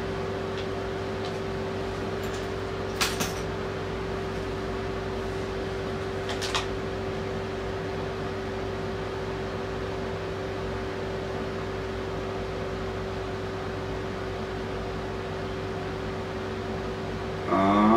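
A steady mechanical hum with one constant tone running under it, broken by two short clicks about three seconds and six and a half seconds in.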